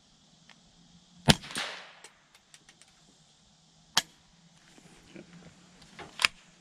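Ruger 10/22 semi-automatic .22 rifle firing a hollow-point round about a second in: a sharp crack with a short echo trailing after it. A few light ticks follow, then two more sharp cracks, one near the middle and one near the end.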